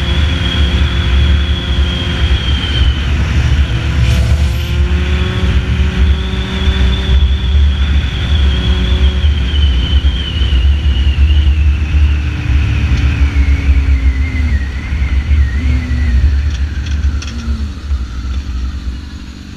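Sportbike engine running at highway speed under heavy wind buffeting on the microphone. In the second half its whine slides down in pitch and the noise eases off as the bike slows.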